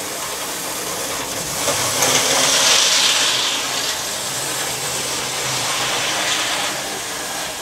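Model Class 37 diesel locomotive running around the layout: a steady whirr of its motor and wheels on the track, swelling for a second or so about two seconds in as it passes nearer.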